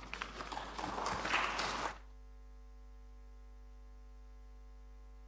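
About two seconds of rustling and shuffling noise in the hall, with small scattered clicks, which cuts off suddenly. A steady faint electrical hum follows.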